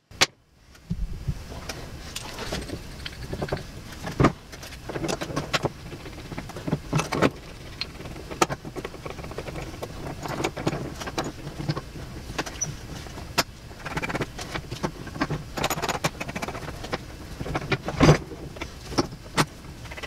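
Steel clinks, clicks and knocks of a bearing puller being fitted onto the end of an electric motor's rotor shaft, with a few louder knocks about four seconds in and near the end. A steady low hum runs underneath.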